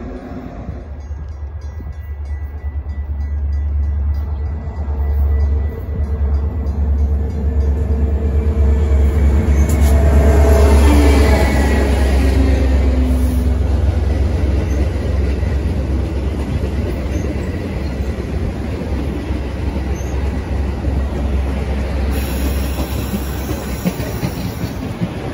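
A Metra commuter train of stainless-steel bilevel cars rolling past close by: a dense rumble of wheels on rail that builds to its loudest about ten seconds in and then runs on steadily.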